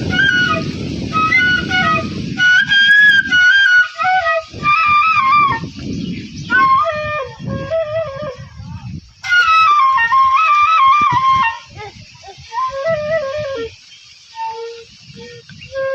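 Bengali bamboo flute (bashi) playing a lilting melody of short, stepped notes with small wavering turns, over a low, noisy accompaniment that comes and goes.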